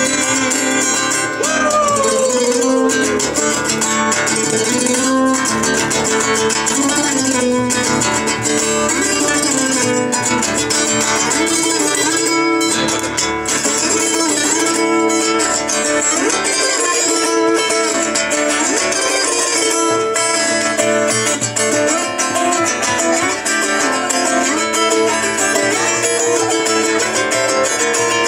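Solo acoustic guitar playing an instrumental passage between verses, plucked and strummed without pause.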